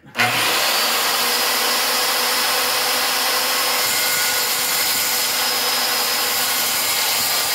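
Corded circular saw starting abruptly and then running steadily as its blade cuts through a wooden post, a loud even whine over the sound of the blade chewing through the wood.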